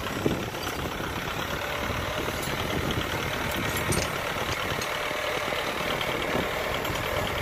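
Farm tractor on steel cage wheels with its diesel engine running steadily as it drives through rice stubble and straw.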